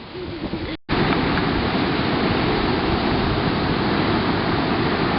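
Steady rushing of ocean surf with wind on the microphone. It starts abruptly about a second in, after a brief dropout.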